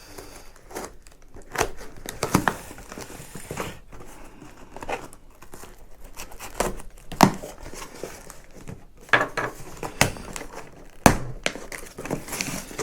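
Packing material crumpling and rustling as it is pulled out of a cardboard shipping box, with irregular sharp crackles and knocks.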